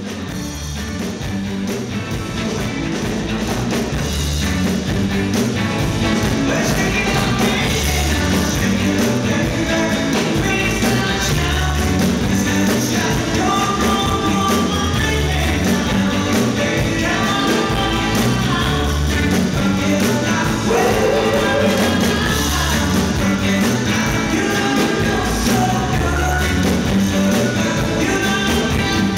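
Live rock and roll band playing electric guitars and drums with singing, growing louder over the first few seconds.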